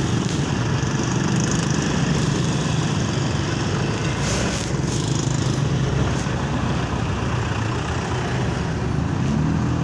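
Motorcycle engine running at low speed, heard from the rider's seat, with a steady rumble of surrounding road traffic in slow, congested flow.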